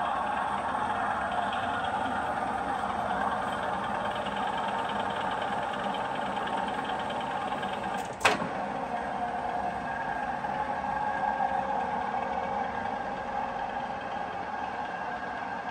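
Tiger FU-120 universal milling machine's table power feed running at its maximum feed rate of 630 mm/min: a steady mechanical whine and hum from the feed drive. One sharp clunk about eight seconds in.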